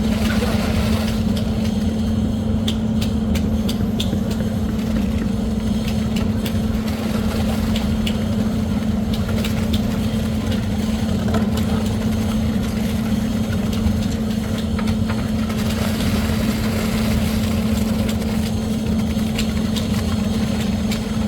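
An engine running steadily at a constant pitch, with scattered clicks and knocks over it.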